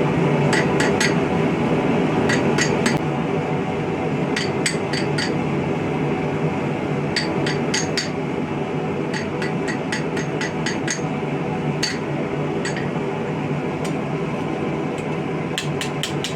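Light hammer taps on a thin sheet-steel star, struck in quick groups of three to six with short pauses between, each tap ringing tinnily, as texture lines are worked into the metal. A steady fan-like hum runs underneath.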